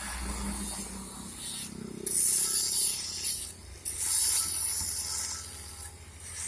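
Work on a pipeline weld: two bursts of high-pitched hissing, scraping noise, the first about two seconds in and the second, longer one, a little after, with a short break between them.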